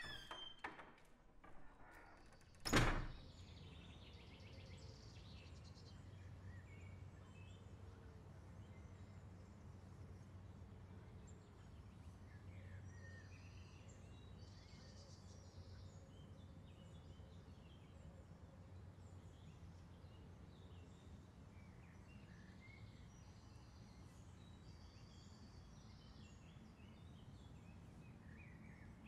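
A single loud thump about three seconds in, then birds chirping here and there over a low steady hum.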